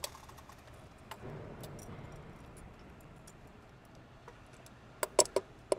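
Quiet handling with a few faint clicks, then a quick run of sharp metallic clicks near the end: stainless safety wire being pushed through the oil filter's safety-wire tab.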